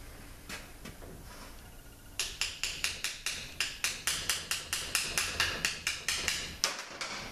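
A quick run of light, sharp taps, about five a second, starting about two seconds in, from a hand tool working the valve parts and end plug down into a 4L80E transmission valve-body bore so the snap ring can go in.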